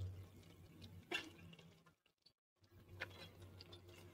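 Faint bubbling of mutton gravy in a pressure-cooker pot, with a few soft crackles and rustles as handfuls of chopped spinach go in over a low steady hum. The sound drops out completely for about half a second around the middle.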